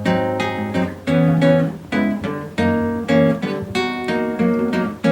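Acoustic guitar strumming chords in a steady rhythm, about two strokes a second: the instrumental introduction of a song.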